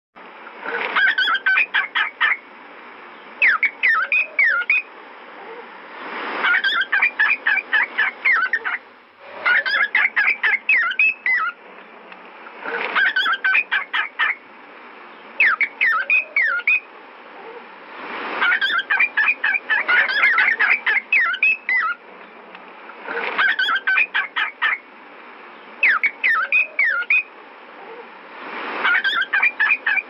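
Cockatiel chirping and whistling in repeated bursts of quick, rising and falling notes, a burst every two to three seconds.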